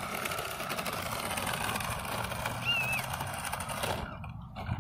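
Battery-powered toy car's small electric motor and plastic gears whirring as it drives over rough asphalt, with the wheels rolling on the grit. The sound cuts off abruptly about four seconds in.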